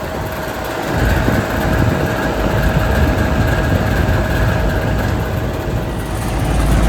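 2009 Luxaire LX13 2-ton air-conditioner condenser running: a steady hum with a constant whine over it. A low rumble builds about a second in.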